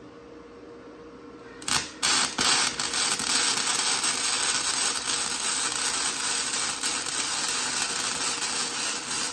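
Arc welding on a beveled steel joint: after a couple of sharp pops as the arc strikes, about two seconds in, a steady loud crackling sizzle of the arc runs on as the bead is laid.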